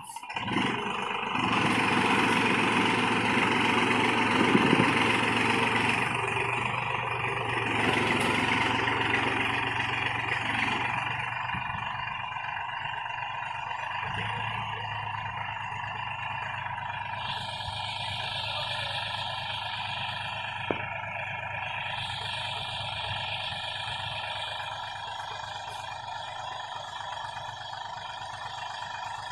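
New Holland 4710 tractor's diesel engine running under load as it hauls a sand-laden trolley up a loose sandy slope. It is louder for the first ten seconds or so, then settles to a steadier, lower level.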